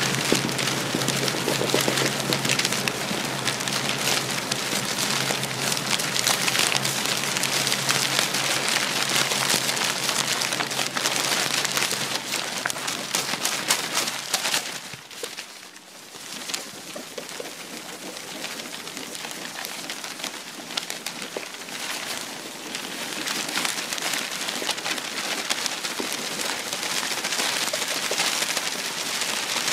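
Steady rain, a dense crackling hiss, with a low hum under it in the first half. The sound drops briefly about halfway through, then builds back.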